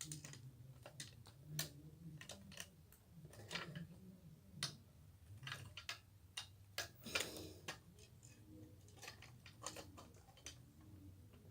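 Faint, irregular clicks and taps of a locked fire alarm pull station being handled, over a low steady hum.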